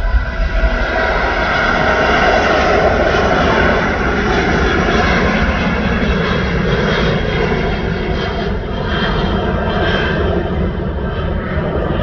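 Airbus A380's four jet engines at take-off thrust just after lift-off as the airliner climbs away: a loud, steady rushing jet noise with a faint whine in it.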